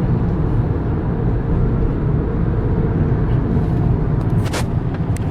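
Steady low rumble of a car moving in heavy traffic, engine and road noise without a break, with a few light clicks near the end.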